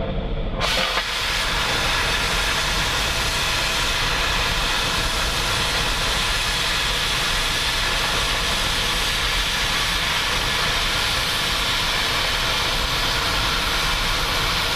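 Oxyacetylene cutting torch burning through steel. The preheat flame rumbles, then about a second in the oxygen cutting lever is pressed and a steady, loud hiss of the cutting jet takes over as it cuts the bevel.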